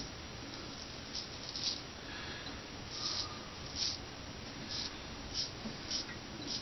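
Straight razor scraping stubble through shaving lather in a string of short, separate strokes, about eight in all.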